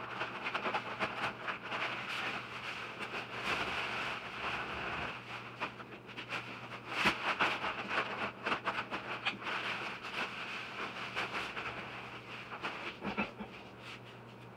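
Dry granular fill pouring from a paper bag through a hole into a hollow steel hot-water tank: a steady rushing hiss with scattered ticks and bag rustling, tapering off near the end.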